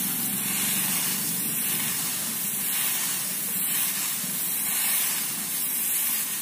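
Hand-pump pressure sprayer misting water onto the soil of seedling polybags: a steady hiss of spray.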